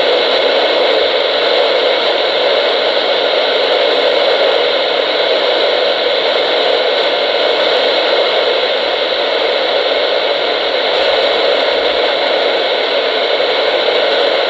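Loud, steady hiss of radio static from a weather radio receiver. It comes in suddenly as the broadcast signal drops out in the middle of a tornado warning message.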